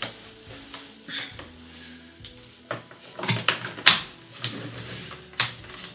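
A jigsaw and its packaging being handled and packed away: a quick run of knocks and clicks in the middle, the loudest a sharp knock about four seconds in.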